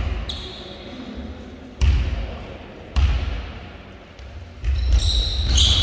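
A basketball bouncing on the court floor: three separate bounces, then quicker repeated bounces near the end.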